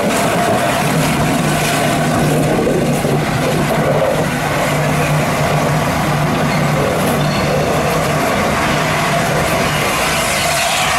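LNER A4 steam locomotive moving slowly past with a steady hiss of escaping steam and running-gear noise.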